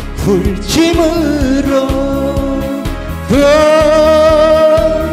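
A man singing a Korean trot song into a handheld microphone over a backing track with a steady beat. He holds one long note with a wavering pitch through the second half.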